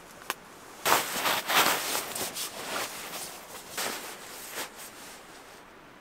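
A single sharp click, then about four seconds of irregular rustling and shuffling that fades out near the end.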